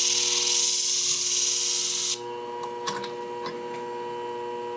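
A hard-steel shear blade, held in a 45-degree clamp, hissing against the spinning abrasive disc of a flat hone sharpening machine. The grinding cuts off suddenly about two seconds in as the blade is lifted away, leaving a steady machine hum and a few light clicks as the clamp is handled.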